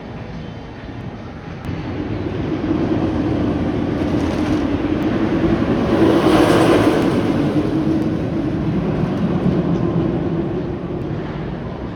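Roller coaster train rolling along its steel track, a rumble with a steady hum of the wheels that builds, peaks as it passes about halfway through, and fades away.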